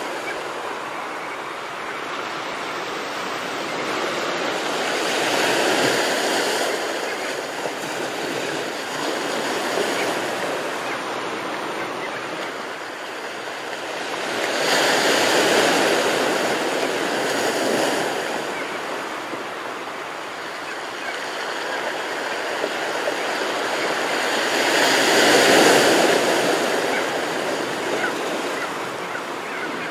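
Ocean surf washing in: a steady hiss of moving water that swells three times, roughly every ten seconds, as waves break and recede.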